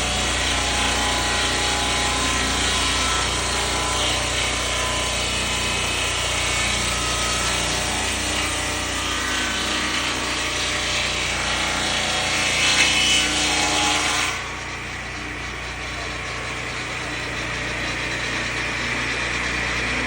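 Chainsaw-powered Turbosawmill blade sawing lengthwise through a wooden beam, the engine running hard under load. About fourteen seconds in, the cutting noise drops off suddenly as the blade comes out of the wood, and the engine runs on more quietly.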